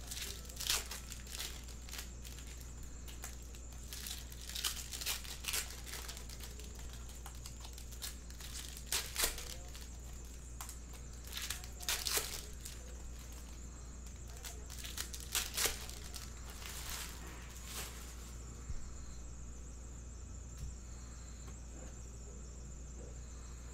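Foil trading-card pack wrappers being torn open and crinkled, in short bursts of rustling every few seconds, with cards handled and squared into a stack on the table. A steady low hum runs underneath.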